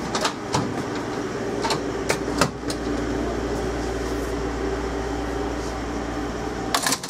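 Steady hum of a stationary Class 230 D-Train's onboard equipment heard inside the carriage, with several sharp clicks and knocks in the first few seconds and a short cluster of them just before the end.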